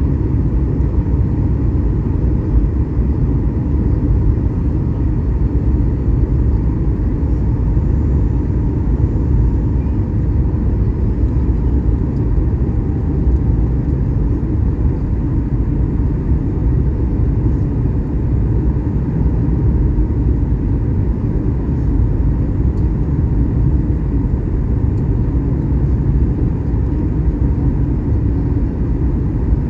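Airliner cabin noise in flight: a steady low rumble of engines and rushing air, unchanging throughout, with a faint steady hum on top.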